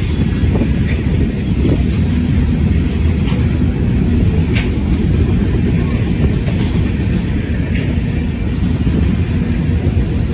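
Freight train cars, covered hoppers and tank cars, rolling past at close range. Their wheels make a steady rumble on the rails, with a few faint clicks.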